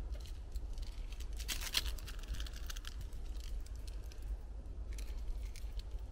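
A small packet being handled, torn open and crinkled, with a dense burst of crackling about one and a half seconds in and a few sharp clicks near the end, over a steady low rumble.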